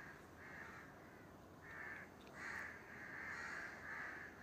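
Crows cawing repeatedly and faintly, a run of short harsh calls about every half second to a second.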